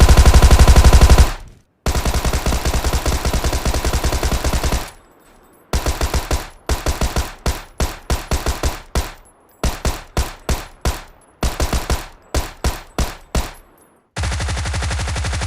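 Thompson submachine gun firing full-auto in rapid bursts: one burst ending about a second in, a long burst of about three seconds, then a string of short bursts of a few rounds each. Near the end comes one more steady burst, quieter and duller.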